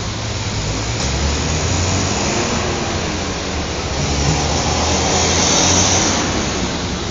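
Highway traffic: vehicles passing in a continuous rumble and rush. It swells to its loudest about five to six seconds in, as a vehicle goes by.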